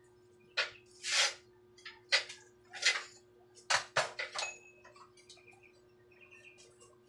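Tools and metal parts being handled and set down on a concrete floor: about six short clatters and scrapes in the first four seconds or so, then only faint light knocks.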